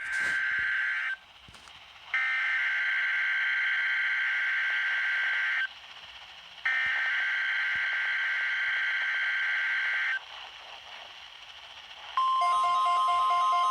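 Three bursts of EAS SAME header data from a NOAA Weather Radio Required Weekly Test: buzzing digital data tones, the first about a second and a half long and the next two about three and a half seconds each, with about a second of radio static between them. Near the end a steady tone starts.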